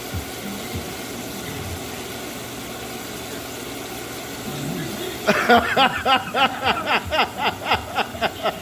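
A steady low background hum, then about five seconds in a person starts laughing in a run of quick repeated bursts.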